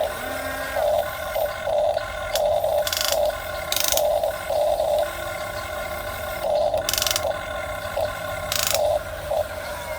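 Small electric gear motors of a radio-controlled model excavator whirring in short stop-start bursts as the machine is worked, with a few brief hissing bursts in between.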